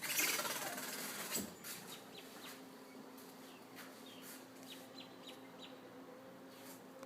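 A door swinging slowly shut on its hydraulic door closer, with a soft rushing noise in the first second. After that there are faint scattered bird chirps over a low steady hum.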